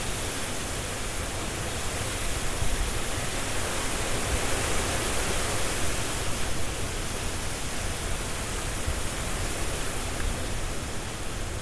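Strong wind blowing through trees with rustling leaves: a steady rush of noise over a low rumble, swelling slightly between about two and seven seconds in.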